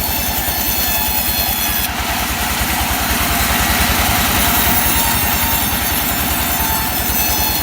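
Engine-driven sawmill running with a rapid, even engine pulse. From about two seconds in, the saw blade cuts into Sonokeling rosewood, adding a steady cutting hiss over the engine.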